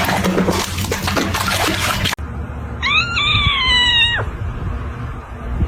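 A noisy rustle, then a house cat gives a single meow lasting about a second: its pitch steps up, then slowly falls before it breaks off.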